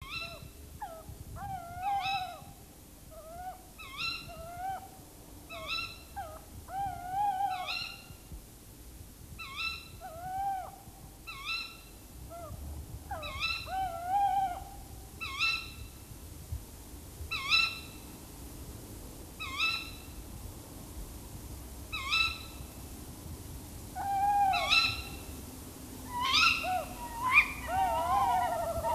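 Tawny owls giving short, sharp alarm calls, about one a second, louder and overlapping near the end.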